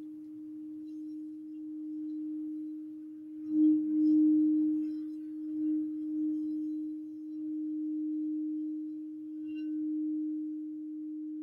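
Iridescent crystal singing bowl sung by rubbing a white wand around its rim: a single steady low tone that swells louder about three and a half seconds in, then gently wavers in strength.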